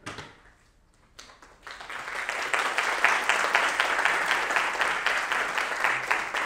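Audience applauding: a few scattered claps, then full applause builds about a second and a half in and continues.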